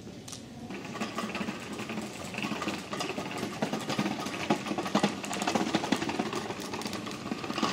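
Small hard scooter wheels and a wooden frame clattering over cobblestones: a dense, irregular rattle of many quick clicks and knocks that starts abruptly about a second in.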